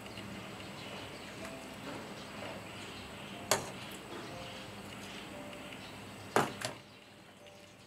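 Tofu stew being ladled from a metal pot into an earthenware bowl: a metal ladle gives two sharp clinks, one about halfway and a double one near the end. Under them is a steady low hiss that drops after the second clink.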